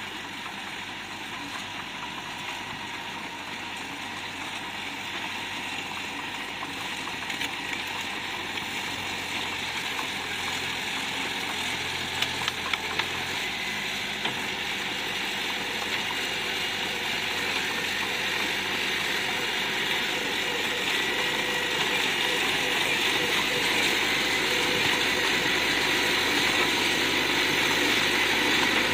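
Bulldozer's diesel engine running steadily and growing gradually louder, with a few short clanks about twelve seconds in.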